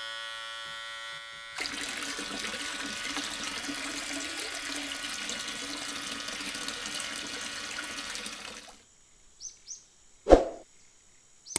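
Water rushing steadily for about seven seconds. A small electric motor buzzes briefly before it, and after it come a few short high chirps and one sharp click.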